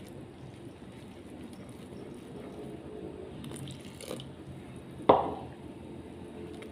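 Silicone spatula stirring a wet, thick batter of flour and blended prawn heads and shells in a plastic bowl, a steady wet squelching. About five seconds in there is one sharp knock with a brief ring.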